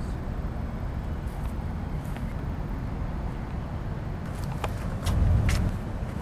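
Steady low rumbling noise, with a few short sharp clicks and a brief louder surge about five seconds in.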